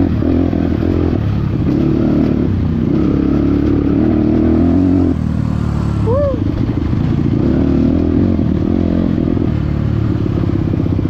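Motorcycle engine running steadily under way. The engine note drops about five seconds in, and a short rising-and-falling chirp follows a second later.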